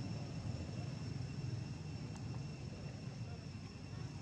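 Steady outdoor background noise: a low rumble with two faint, steady high-pitched tones above it, and a single faint click about two seconds in.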